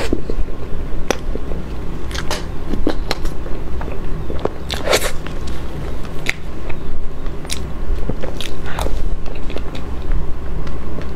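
Close-miked mouth sounds of someone eating soft cream cake: wet chewing and lip smacking, with scattered sharp smacks, over a steady low hum.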